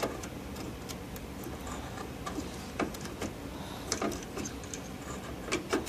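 Scattered small plastic clicks and taps as a memory module is worked into a motherboard's memory slot and its retaining clips are handled, with a few sharper clicks about three and four seconds in and near the end.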